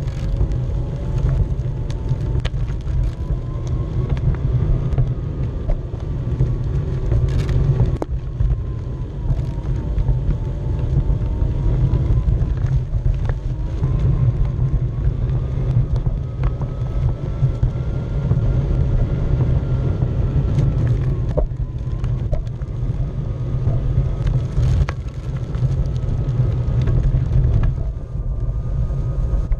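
Onewheel's electric hub motor whining, its pitch drifting up and down with speed, over a heavy low rumble of wind on the microphone and the tyre rolling over pavement and then grass. A few sharp knocks come from bumps in the ground.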